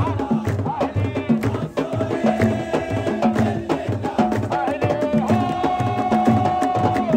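Fans' drums beating a steady rhythm about twice a second, with a long held melody in Middle Eastern style sung or played over them.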